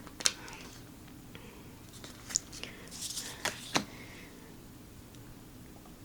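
Tarot cards being handled: a few soft card clicks and rustles as cards are turned and slid, with quiet gaps between.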